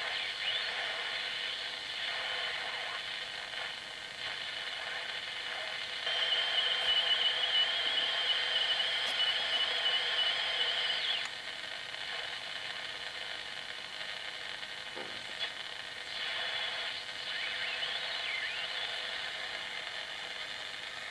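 Shortwave reception from a homebuilt slug-tuned receiver with no automatic fading compensation: a distant station's signal in hiss and static, its level swelling and sinking every few seconds. This is quick fading of the signal through the atmosphere, with a louder stretch in the middle that carries a high steady whistle.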